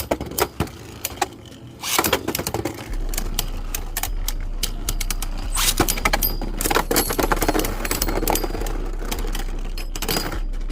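Beyblade Burst spinning tops clashing and rattling: a rapid, irregular run of clicks and knocks, sparse at first and then dense and continuous from about two seconds in.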